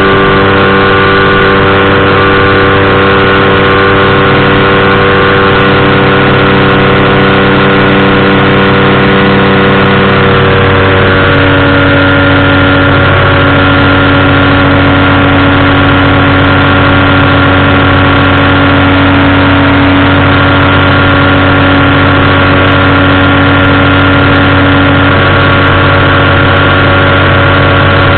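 Powered parachute engine and propeller running loud and steady, with a shift in engine speed about ten seconds in.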